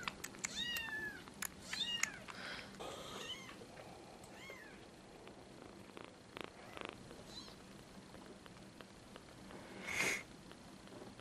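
Kittens mewing: a quick run of short, high cries in the first two seconds, then a few fainter ones, and one louder, noisier sound about ten seconds in.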